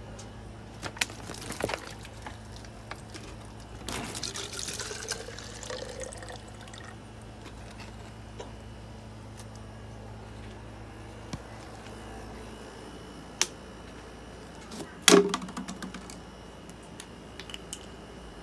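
Water poured from a plastic bottle into a dish, a short splashing pour that rises in pitch as it fills, lasting a couple of seconds. A few light clicks come before it, and one loud knock comes well after it.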